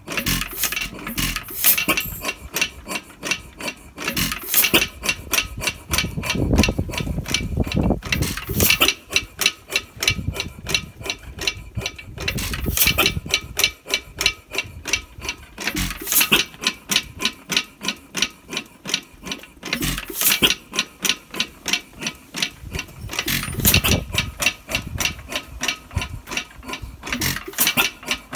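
1922 3 hp Bates & Edmonds Bull Dog hit-and-miss stationary engine running: a fast, even clicking clatter, with a louder burst of firing strokes about every four seconds. Between bursts the hit-and-miss governor holds the exhaust valve open and the engine coasts.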